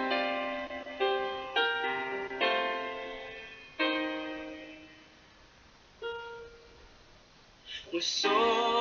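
Piano intro of a pop ballad: slow chords struck one at a time and left to ring and fade, with a long pause after a soft chord about six seconds in. A voice starts singing near the end.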